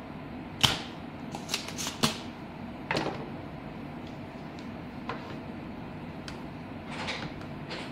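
Spring-loaded desoldering pump snapping once, sharply, a little over half a second in, followed by scattered lighter clicks and taps of small tools on a circuit board, over steady background noise.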